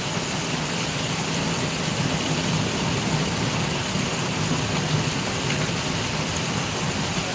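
Heavy rain falling as a steady hiss, with a steady low rumble underneath.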